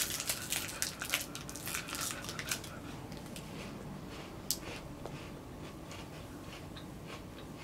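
Crinkling and tearing of small chocolate-bar wrappers being opened by hand: dense crackling for the first two or three seconds, then sparser crinkles with one sharp click about halfway through.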